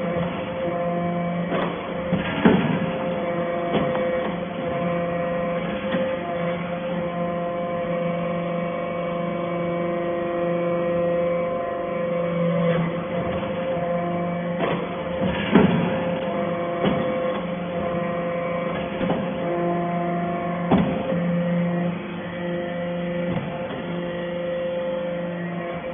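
Hydraulic metal-chips baling press running: a steady hum from its motor and pump, broken by a few sharp knocks spread through.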